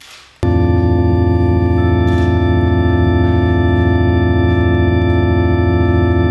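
A loud, steady organ-like electronic chord from keys held down on an electronic keyboard. It starts abruptly about half a second in, after a brief rush of noise, and another higher note joins in near two seconds in.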